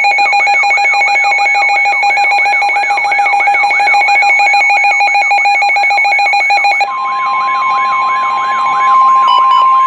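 Weather radio alert tone announcing a new severe thunderstorm warning: a loud electronic alarm of steady tones with a warbling sweep repeating about three times a second. About seven seconds in, the alarm changes and a single steady tone joins it.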